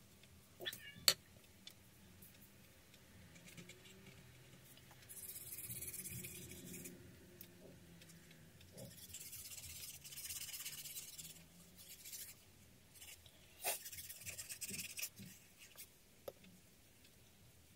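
Paper and card being handled on a cutting mat: a sharp click about a second in, then two longer stretches of paper rubbing and sliding, and a few light taps near the end.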